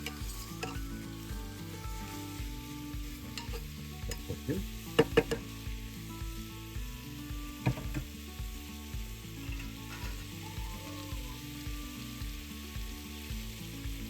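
Chicken pieces sizzling as they fry in hot oil with onions in a pressure cooker, being stirred. A spoon knocks against the pot a few times around the middle.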